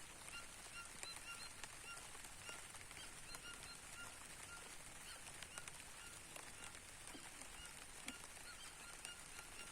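A bird calling over and over in short, nasal, pitched notes, two or three a second, against light rain with scattered drop ticks and a steady high hiss. Faint overall.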